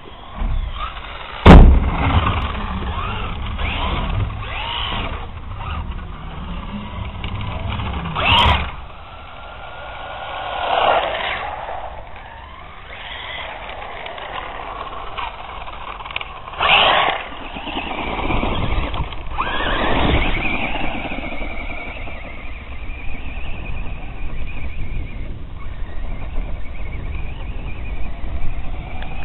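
Mad Fighter RC buggy's electric motor whining, rising and falling in pitch as it speeds up and slows, over a constant rumble, with two sharp knocks, the loudest about a second and a half in.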